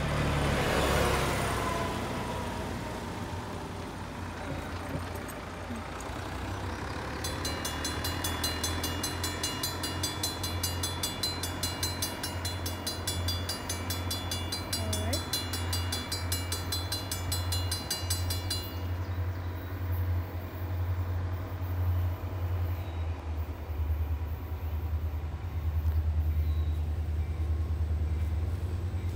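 A railroad crossing bell rings rapidly and evenly for about ten seconds, starting several seconds in and cutting off abruptly. Under it runs a steady low rumble from the approaching diesel train, which swells near the end.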